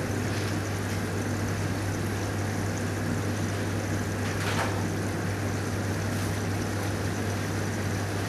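Steady hiss of room noise with a low, steady hum underneath, and a short soft noise about four and a half seconds in.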